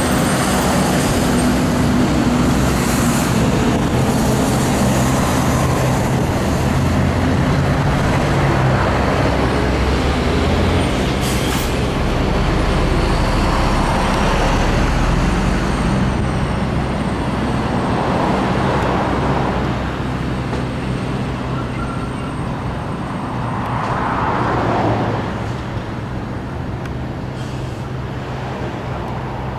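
Road traffic with heavy diesel trucks: truck engines running low and steady, vehicles swelling past several times, and a short hiss about eleven seconds in.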